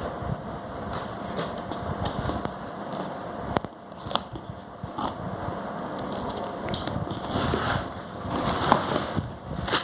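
Shoe packaging being handled: irregular crinkling and crackling with sharp clicks, growing louder near the end.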